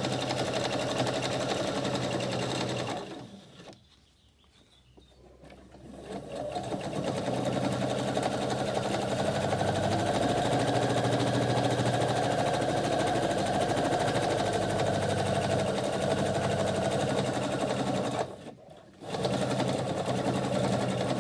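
Sewing machine stitching through layered cotton and wool fabric at a steady speed. It stops for about three seconds early on, starts again and runs on, then stops briefly once more near the end before running again.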